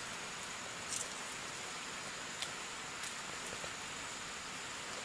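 A steady, faint hiss with a few soft clicks.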